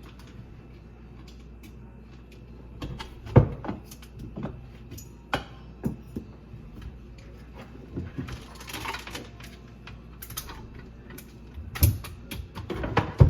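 Irregular knocks, clicks and clatter of hands and tools on a garbage disposal and the pipes under a sink, with a short hiss about two-thirds of the way through.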